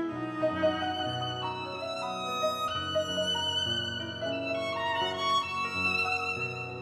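Background music: a violin playing sustained notes over string accompaniment.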